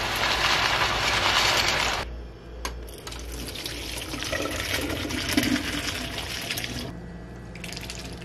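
Water pouring and splashing in a kitchen, in two long spells with a short break about two seconds in.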